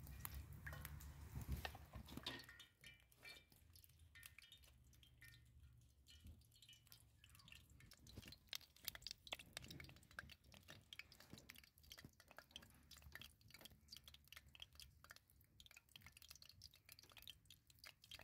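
Oil poured from a plastic bottle into an enamel pot for about the first two seconds, then faint, irregular crackling and popping as dough pinwheels fry in the hot oil over a wood fire.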